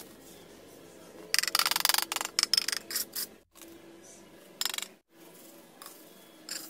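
A knife blade, used as a trowel, scraping and tapping against bricks and wet cement mortar, with bricks set down into the mortar. A quick run of clicks and scrapes comes about a second and a half in, then single clicks later.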